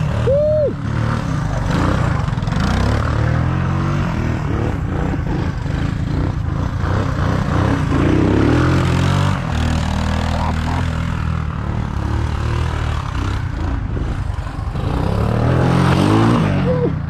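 Small off-road engine of an ATV running hard as it is ridden through snow, its pitch climbing and dropping again and again as the throttle is worked.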